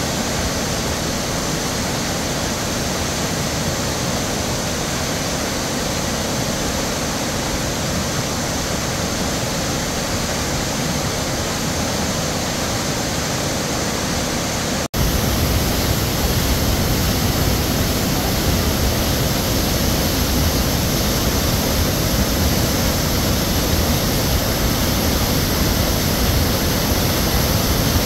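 Steady rushing roar of a tall waterfall pouring into its plunge pool. A little before halfway it cuts abruptly to a narrow cascade rushing down a rock chute, which is louder and has more low rumble.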